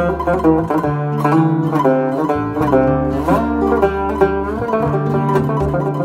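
Instrumental break of a Turkish folk song: plucked string instruments play a quick melody of short notes over a low bass line.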